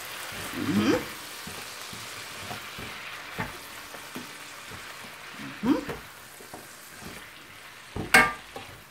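Chicken pieces sizzling as they fry in a hot pan, stirred and turned with a spatula, with a few light knocks. A sharp clatter comes near the end.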